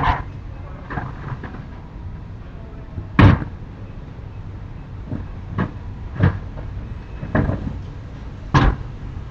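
Someone banging on a house: irregular sharp knocks and bangs, the loudest about three seconds in, then four more spaced about a second apart over the last four seconds.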